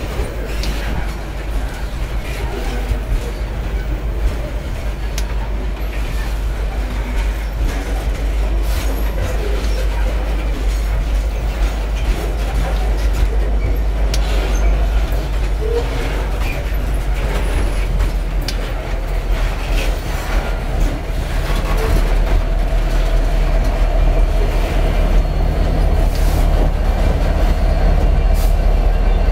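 Covered hopper cars of a long freight train rolling past: a steady rumble of wheels on rail with scattered clacks. Near the end a mid-train diesel locomotive draws alongside, adding a steady engine hum and growing a little louder.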